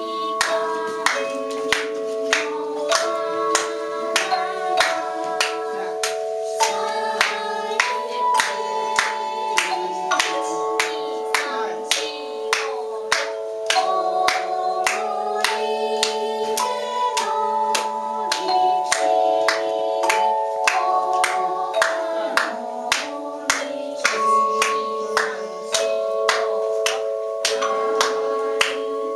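Tone chimes ringing out a slow melody in long sustained notes, over sharp percussive strokes keeping a steady beat.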